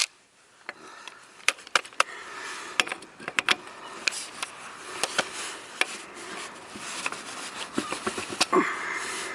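Scattered light clicks and knocks from handling the impact driver and loosened wheel nuts, the tool itself not running.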